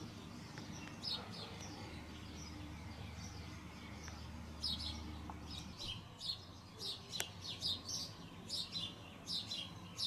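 Small birds chirping in the background, a quick run of short high calls that starts a little before halfway through, over a faint low hum that fades out about two-thirds of the way in.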